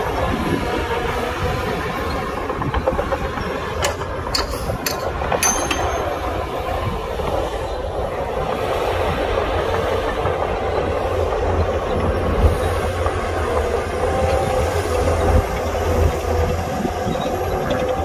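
Heavy diesel earthmoving machinery running: a steady, loud engine rumble with a few sharp metallic clicks about four to five seconds in.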